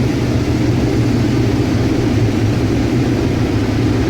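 Combine harvester running steadily while harvesting corn, a constant low engine and machinery drone.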